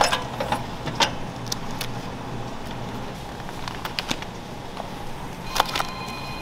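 Kitchen clatter: a few light clicks and clinks over a steady low hum, with a faint high tone near the end.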